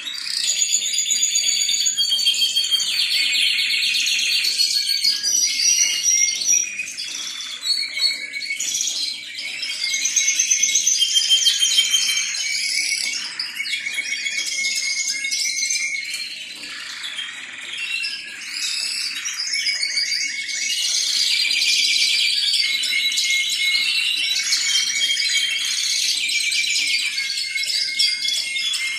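Timbrado canary singing without a break: long runs of rapid trilled notes that change to a new phrase every second or two.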